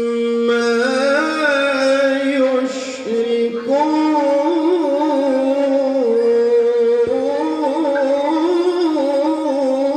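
A male qari reciting the Qur'an in melodic tilawah style: long held, ornamented notes in one voice, with a short pause for breath about three seconds in.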